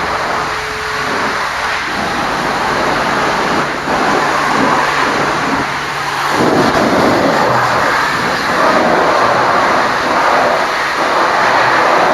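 High-pressure water spray hissing against a truck during a truck wash, growing louder about halfway through.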